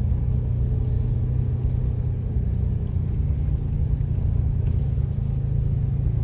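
Steady low engine rumble of a motor vehicle moving slowly along a street.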